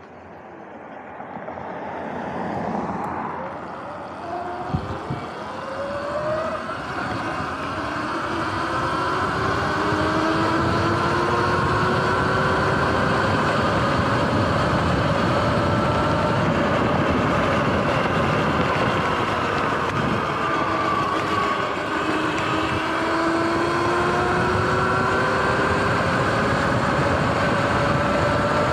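Sur-Ron electric dirt bike pulling away and accelerating: wind rushing over the microphone builds over the first ten seconds to a steady loud rush, with the motor and drivetrain whine gliding upward in pitch several times as speed rises.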